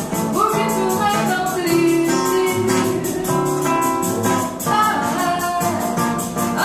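Live bossa nova: a woman singing over plucked acoustic guitar chords, with a shaker keeping an even, quick beat.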